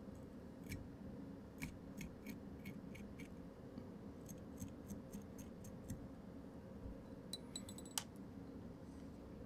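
Small dubbing brush raking across a fly's dubbed body in faint, quick scratchy strokes, several a second, picking out the dubbing fibres on the finished fly. A sharper click about eight seconds in.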